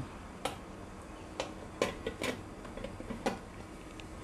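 Stainless steel lid being set onto an idli steamer pot: a handful of light, sharp metal clicks and clinks as it settles.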